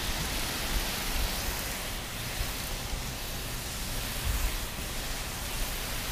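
Steady hiss of water spraying from a leaking garden hose connection.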